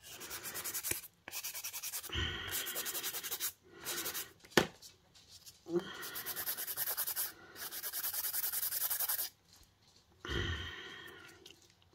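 A handheld nail file rasping fast back and forth across a hard poly gel false nail tip, sanding it to shape. It comes in several runs of rapid strokes with short pauses between, and there is a single sharp click about halfway through.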